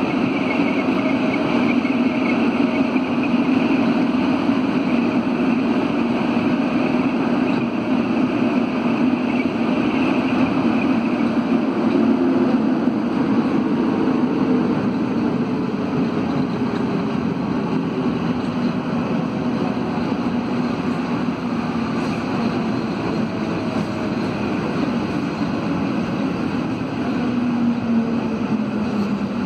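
CAF NS-07 rubber-tyred metro train running through a tunnel, heard from inside the car: a steady loud rumble of the running gear with traction-motor tones. The tones fall in pitch in the second half as the train slows.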